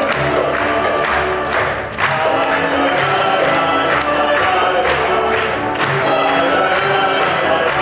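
A group of voices singing a song together to music, with a steady beat.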